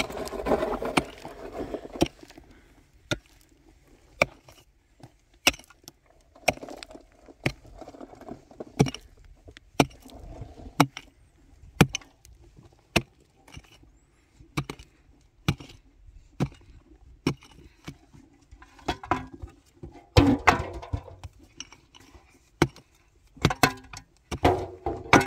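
Hand digging in dry, stony earth: a pick or spade strikes the ground about once a second, with scraping and soil and stones shifting between the strikes.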